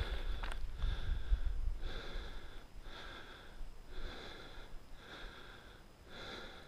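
Backpacking water filter being hand-pumped in steady strokes, about one a second, six in all, each stroke a short hiss.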